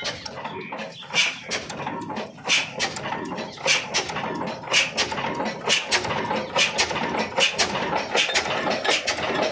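Old Ruston-type horizontal diesel engine with a heavy flywheel running at slow speed, firing with a sharp beat about two to three times a second, the beats coming slightly quicker toward the end as it picks up after starting.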